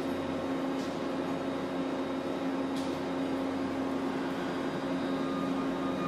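Steady mechanical hum of running equipment, holding a few constant tones, with two faint short scratches about one and three seconds in.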